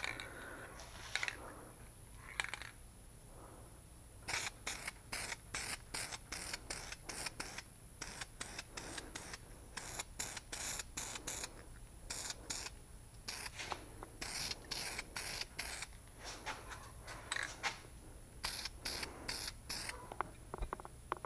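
Aerosol can of satin spray paint used on a hanging axe head: many short hissing spray bursts, about three a second, in several runs with brief pauses between.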